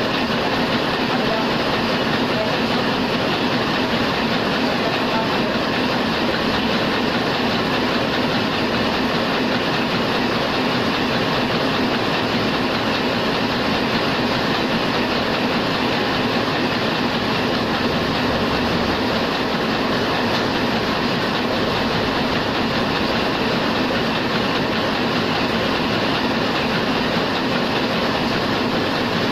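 Heidelberg SORMZ two-colour sheet-fed offset press running steadily while printing, an even, unbroken machine noise at a constant level.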